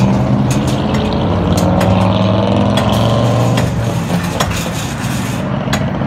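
A vehicle engine running steadily nearby, with highway traffic behind it, while steel livestock gate panels clank sharply several times as they are handled.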